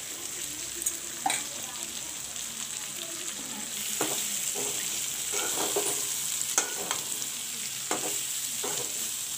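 Chicken pieces, sliced onions and slit green chilies sizzling in hot oil in a metal kadai, with a steady frying hiss. A spatula scrapes and knocks against the pan now and then as the onions are stirred in.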